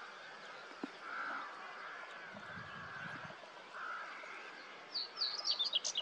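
Distant birds calling: a soft arching note repeated every second or so, with a quick run of high, sharp chirps near the end.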